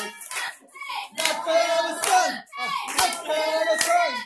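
A group of voices singing along while hands clap in time.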